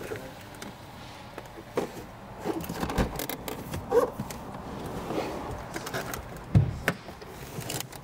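Handling noise from a handheld camera moving about inside a car: scattered clicks, rustles and light knocks, with one heavier low thump about six and a half seconds in.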